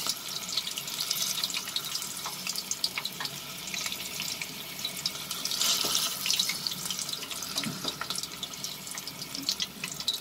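Curry leaves and green chillies frying in hot oil in a steel kadhai: a steady sizzle with many small crackles and pops, briefly louder about six seconds in.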